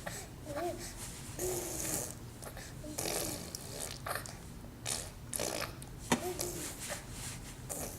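A small child making playful mouth and throat noises: a string of short, breathy, rasping sounds about one a second, some ending in a brief squeaky voiced glide, with a sharp click about six seconds in.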